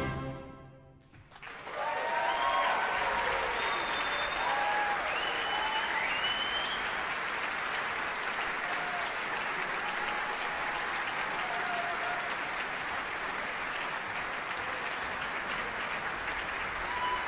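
Concert audience applauding, the clapping starting about a second and a half in and then continuing steadily, with some cheering over it in the first few seconds.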